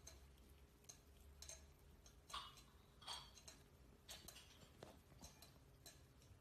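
Near silence with faint, scattered scuffs and soft clicks of a cat and kitten wrestling on carpet.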